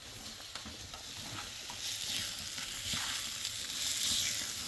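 Food frying in a pan: a steady sizzling hiss with small crackles, getting louder about two seconds in.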